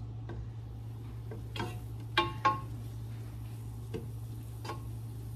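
A wooden spoon stirring butter in a large pot, knocking against the pot a handful of times, twice more sharply a little after two seconds in, over a steady low hum.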